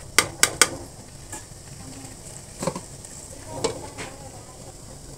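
Duck pieces in spice paste sizzling steadily in a metal pan while being stir-fried to brown in the masala. A metal spatula clacks against the pan three times sharply near the start, and there are two softer metal knocks later.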